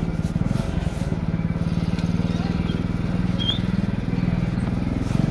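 Motor vehicle engine running steadily while under way, an even low pulsing hum, heard by someone riding on the vehicle.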